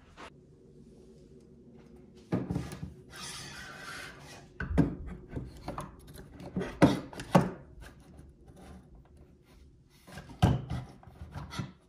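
Objects being handled and moved about: irregular rubbing and scraping with several sharp knocks.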